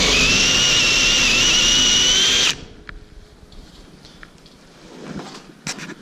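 DeWalt cordless drill with a side-cutter bit running at speed, cutting through the metal of a sliding screen door frame to clear room for the lock. Its whine climbs slightly, then cuts off suddenly about two and a half seconds in, followed by a few faint clicks near the end.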